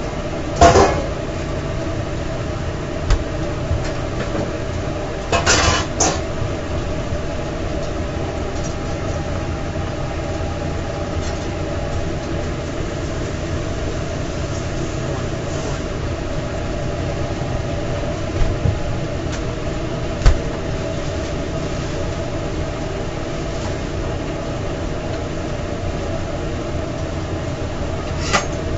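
Steady hum of food-trailer kitchen equipment running, with a few brief knocks and clatters: about a second in, around six seconds in and once near twenty seconds.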